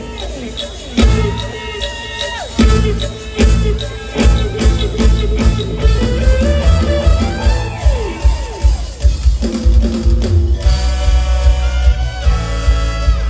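Thai Isan mor lam stage band playing loud through the concert PA: a drum kit keeps a steady beat under sustained melodic lines, some of which fall in pitch, with a dense held chord near the end.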